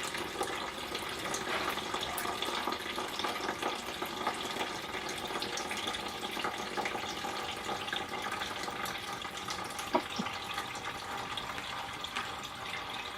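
Coolant pouring steadily out of a Volvo 850's radiator as it is lowered out, a continuous splashing stream with a few faint clicks.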